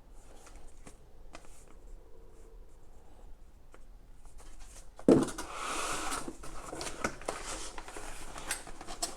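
Unboxing packaging being handled: faint rustles and small clicks, then about five seconds in a sharp thump followed by louder rustling and crinkling as the fire extinguisher is worked out of its box.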